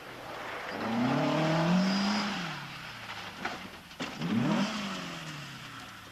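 Rally car engine revving hard, its pitch climbing and then falling away. About three and a half and four seconds in come two sharp crash impacts as the car leaves the road and rolls over, followed by a brief rising and falling rev of the engine.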